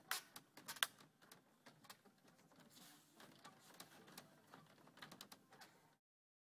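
Faint, irregular wooden clicks and knocks as yurt rafters and lattice wall pieces are handled and fitted together, a few louder knocks in the first second. The sound cuts out completely about six seconds in.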